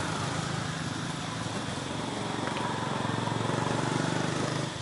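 A small engine running steadily with a low hum, which cuts off near the end.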